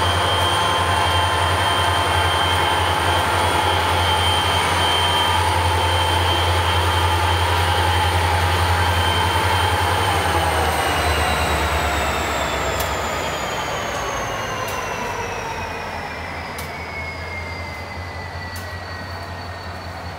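Reading Blue Mountain & Northern diesel locomotives crossing a steel girder bridge: a loud low engine drone with steady high whines over it. About halfway through the whines slide steadily down in pitch and the sound fades as the locomotives pass, leaving hopper cars rolling over the bridge with a few sharp clicks near the end.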